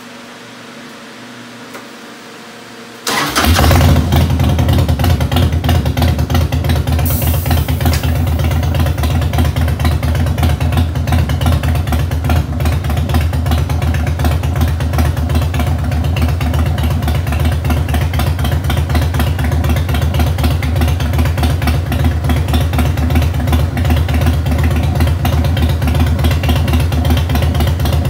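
Harley-Davidson Heritage Softail V-twin with a 1550 big bore kit, 211 cams and Vance & Hines exhaust: quiet for the first three seconds, then the engine fires and settles into a steady idle with an even pulsing beat.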